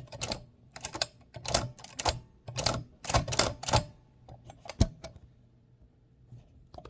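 1925 Mignon 4 index typewriter's carriage and escapement mechanism being worked by hand: a run of sharp clicks and rattles in clusters about every half second, ending with a single louder click about five seconds in.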